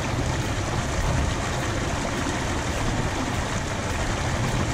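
Seawater surging and churning through a narrow channel in jagged coral rock: a steady rushing wash with a heavy low rumble.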